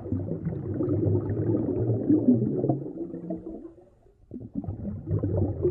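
Muffled underwater gurgling and rumbling, as picked up by an underwater camera. It drops away briefly about four seconds in, then starts again.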